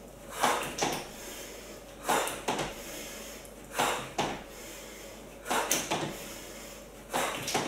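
Sneakered feet landing on a wooden floor during jump squats, feet jumping out and back in: five pairs of short thuds, the two thuds in each pair close together, one pair about every second and a half to two seconds.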